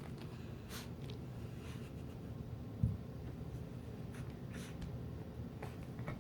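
Scratchy rustling of a blanket as a Yorkie puppy rolls and paws in it, in several short scrapes, with one brief low thump about three seconds in.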